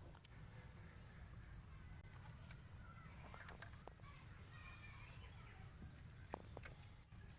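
Near silence: faint outdoor background with distant bird calls, a steady high-pitched hum and a few soft clicks.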